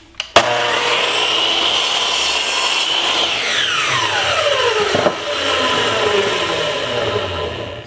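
Miter saw switched on, its motor whine rising as it comes up to speed, then cutting a hardwood board to length, the pitch dropping as the blade works through the wood. The sound fades out just before the end.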